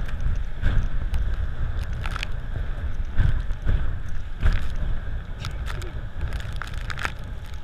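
Rushing wind buffeting the microphone of a towed water tube as it skims the sea, a steady low rumble, with water slapping and splashing against the tube several times.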